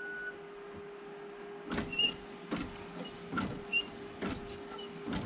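A steady faint hum with a run of sharp clicks and knocks, roughly one every half second, starting a little under two seconds in: hands and tools working metal parts of a bus windscreen wiper arm.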